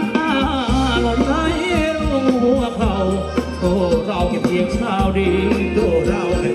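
Thai ramwong dance music from a live band: a sung melody over a bass line that pulses in long held notes.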